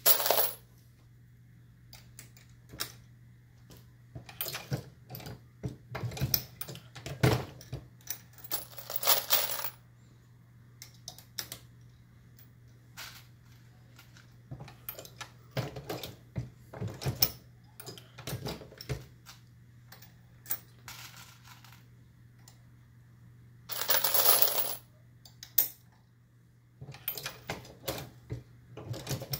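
Dillon RL550B progressive reloading press being cycled steadily while loading .223 cartridges: irregular metallic clacks and clinks from the handle strokes and brass cases. There are three short rattling bursts about a second long: at the start, about nine seconds in, and about 24 seconds in.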